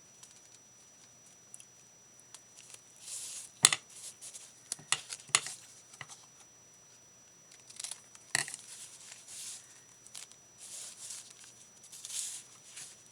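Paper being handled at a craft table: scattered rustling and crinkling, with a few sharp clicks or snaps in between.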